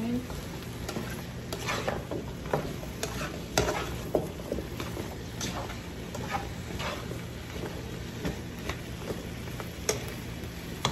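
A spatula stirring and tossing chopped vegetables in a nonstick frying pan: irregular scrapes and taps against the pan, over a steady sizzle of the vegetables cooking.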